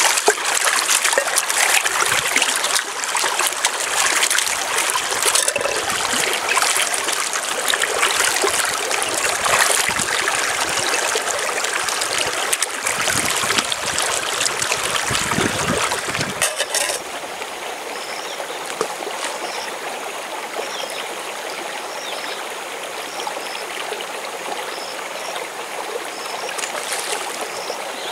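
Camping pot being rinsed by hand in a shallow stream: splashing and sloshing water, with sharp splashes, over the steady running of the stream. The washing stops about two-thirds of the way in, leaving the stream running steadily.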